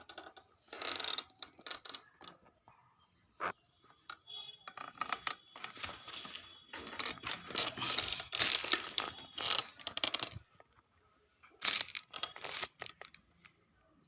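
Irregular scraping and crinkling noises with scattered clicks, in several bursts, from hands and tools working on a transistor amplifier circuit board.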